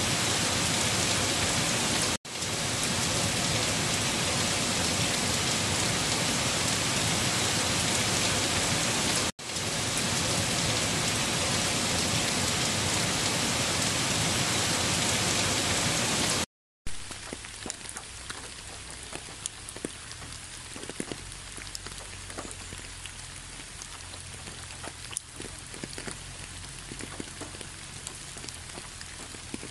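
Heavy rain, a loud dense hiss that cuts out for an instant twice. Just past halfway it drops out briefly and comes back as lighter, quieter rain with separate drops ticking.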